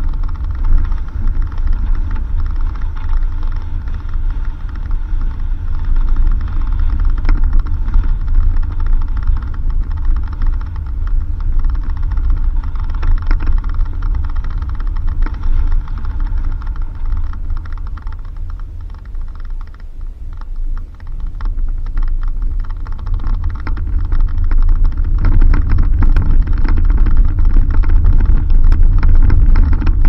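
Suzuki Jimny driving on a dirt road: a steady low rumble with scattered knocks and rattles from the rough surface. It eases off for a few seconds a little past halfway, then grows louder again.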